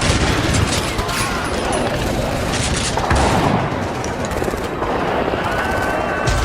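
Battle sound effect: dense, continuous gunfire of rifles and machine guns, with shouting voices mixed into the din.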